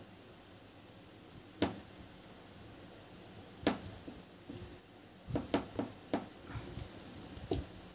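Scattered small clicks of faux pearl beads knocking together as a beaded bag handle is handled and stitched: single clicks with a quick run of four a little past halfway.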